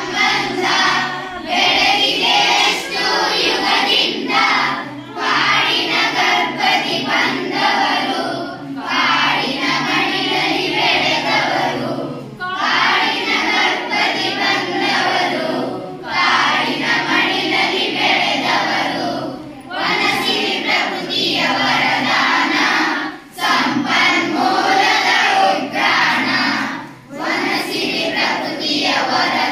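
A classroom of schoolchildren singing together in unison, a group song in phrases separated by brief pauses for breath every few seconds.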